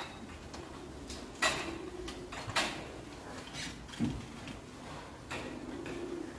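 Barn sounds: a low steady hum with five short clattering knocks at uneven intervals about a second apart.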